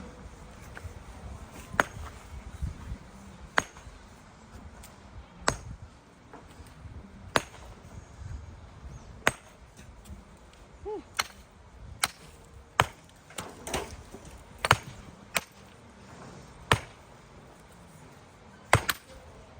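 Repeated sharp strikes of a hand tool on a hard surface. They come about one every two seconds at first, then quicken for a few seconds midway before slowing again.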